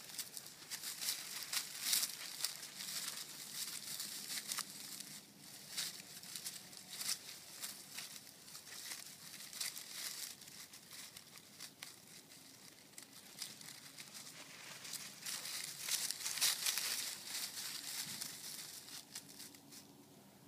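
Dry fallen leaves and grass crunching and crackling under footsteps in irregular bursts. It is loudest about two seconds in and again around sixteen seconds, and quieter near the end.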